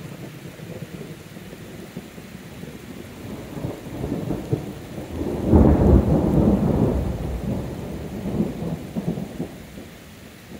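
Thunder rumbling over steady rain: the rumble builds from about three and a half seconds in, is loudest around the middle, and fades away over the last few seconds.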